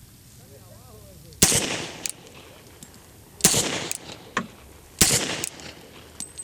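Beretta 96D pistol in .40 S&W fired three times in slow, deliberate single shots, one every one and a half to two seconds, each report ringing on briefly. Fainter sharp cracks come between the shots.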